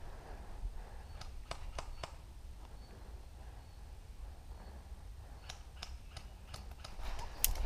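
Low wind rumble on an action-camera microphone, with scattered light clicks and ticks, a handful in the first two seconds and more from about five seconds in; near the end the clicks come faster and the level rises as movement begins.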